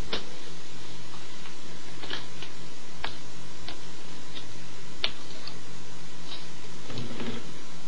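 Scattered faint clicks and taps of hands handling small things on a tabletop, over a steady hiss and low hum.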